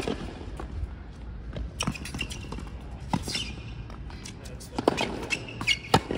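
Tennis rally on a hard court: rackets striking the ball back and forth, with the ball bouncing on the court, a sharp hit about every second to second and a half.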